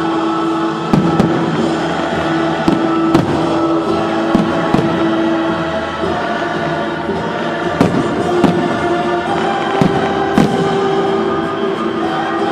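Fireworks finale: fireworks bursting in many irregular sharp bangs, over loud music with a choir holding long notes.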